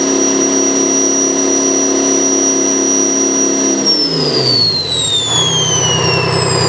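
Detroit 6V53T turbocharged two-stroke V6 diesel running at high revs with a high whine, then the throttle is let off about four seconds in: the engine drops back and settles to a lower, steady speed while the whine keeps winding down.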